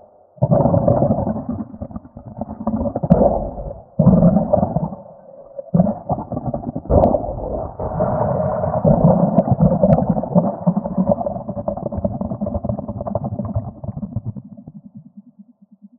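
Stomach growling in several long bouts; the longest starts about six seconds in and trails off near the end.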